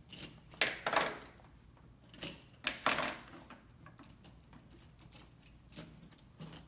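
Small cosmetic tubes and their packaging being handled: a handful of clicks, taps and plastic rustles, busiest in the first three seconds, with two lighter taps near the end.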